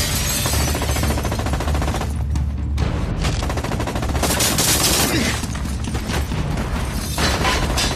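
Rapid automatic gunfire in long bursts, mixed with film score music.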